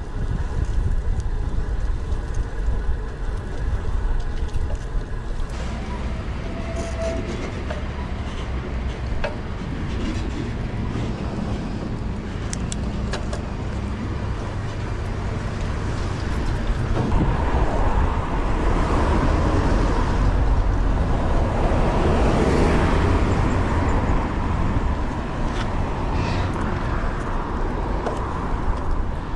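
Road noise heard from a road bike being ridden along city streets: a steady low rumble of wind and traffic. The noise swells louder for several seconds past the middle.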